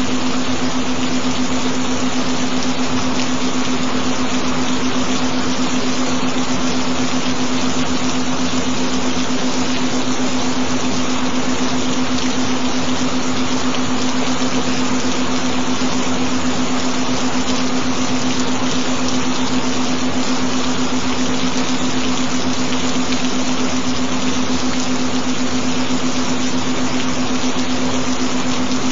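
Gentle rain: an even, steady hiss of falling rain, with a steady low tone held underneath.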